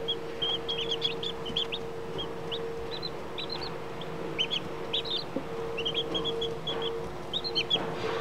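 Newly hatched chicks peeping: many short, high cheeps in quick overlapping runs, several of them arching and falling in pitch. A steady low hum runs underneath.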